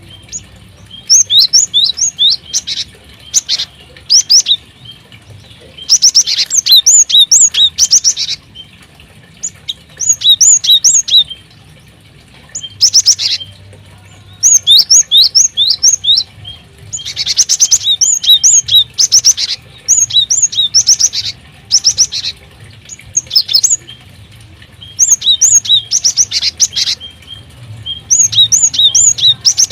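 Small caged birds in an aviary chirping in repeated bursts of rapid, high-pitched notes, each burst a second or two long with short pauses between.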